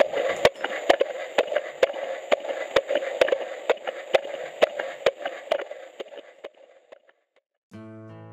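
Fetal heartbeat on an ultrasound Doppler monitor: a fast, even pulse of a little over two beats a second over a hissing whoosh, fading out about six to seven seconds in. Music starts near the end.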